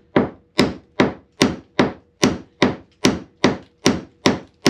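Steady hammering on timber, about two and a half blows a second, each a sharp knock with a short ringing tail.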